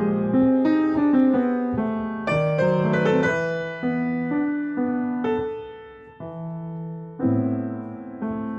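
Solo piano playing slow chords, each struck and left to ring and fade; it softens around six seconds in before a fuller chord about seven seconds in.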